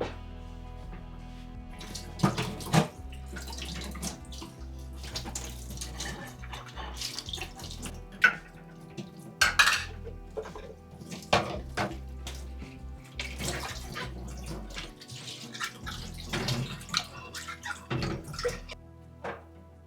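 Dishes and utensils clinking and clacking, with short runs of water from a tap, over soft background music. The sharpest clacks come about two seconds in and around eight to ten seconds in.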